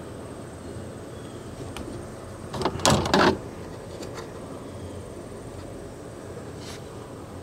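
Wires and plastic connectors of a truck's dash wiring harness being handled: a short clatter of rattling clicks about three seconds in, with a few faint single clicks around it.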